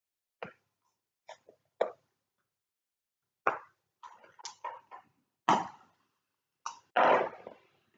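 Backgammon pieces clacking against the board in a series of separate sharp knocks. A quick run of clicks comes about four seconds in, and a longer rattle near the end.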